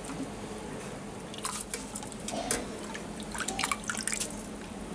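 Water dripping and splashing as handfuls of soaked rice are lifted out of a steel pot of water into a stainless blender jug, with excess water trickling from the jug back into the pot. Scattered short drips and splashes.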